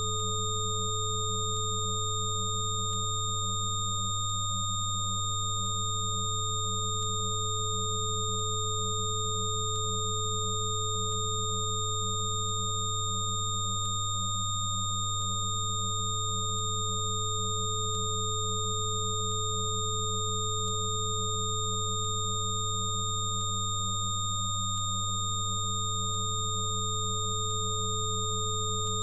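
Electronically generated steady sine tones layered together. A strong low hum sits under a slightly wavering tone just above it, a middle tone dips out briefly about every ten seconds, and several thin high-pitched tones hold steady over it all.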